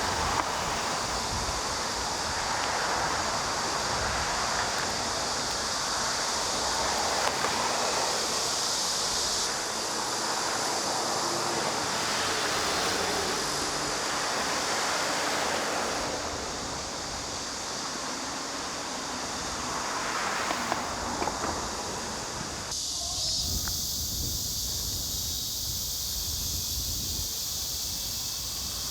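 Outdoor ambience: a broad rushing noise like wind on the microphone, under a steady high hiss. The sound shifts abruptly a few times, as at edits between shots.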